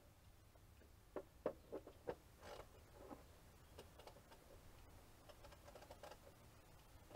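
Near silence, with four faint ticks a little over a second in, a soft rustle just after and a few scattered faint ticks over a low hum.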